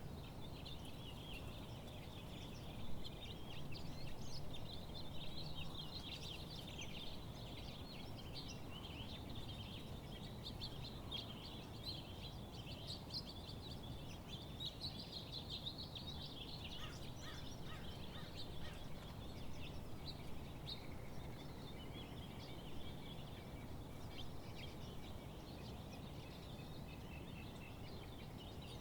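A chorus of many birds singing and chirping together, with quick overlapping high calls, over a steady low background hum.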